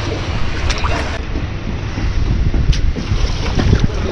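Wind rumbling on the microphone over the wash of shallow river water, with a few brief splashes as a king salmon is handled in the water.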